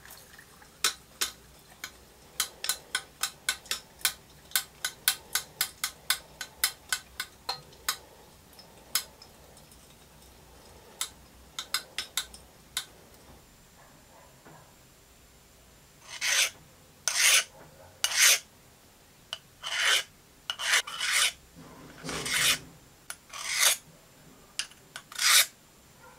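Rapid sharp metallic clicks, about four a second, then a file drawn in long rasping strokes, roughly one a second, across the oil-quenched steel shaft.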